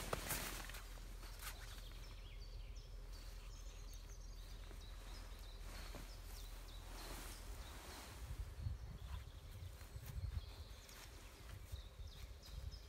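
Canvas tent fabric rustling and flapping as it is pulled and spread out, with faint bird chirps and low rumbling noise from about eight seconds in.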